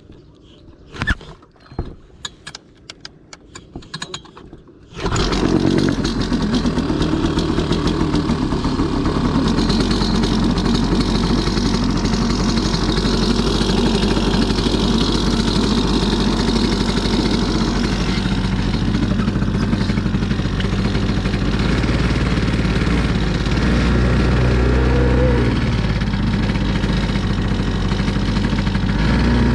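A few sharp knocks and rattles, then about five seconds in a Hangkai 3.6 hp two-stroke outboard motor starts and runs steadily, pushing the inflatable boat along, a little louder near the end.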